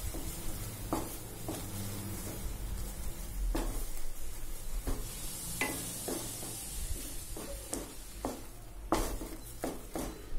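Wooden spatula stirring and scraping a thick, pasty mango burfi mixture around a nonstick kadai, with irregular light knocks of the spatula against the pan. The mixture is being stirred continuously so that it does not catch and burn.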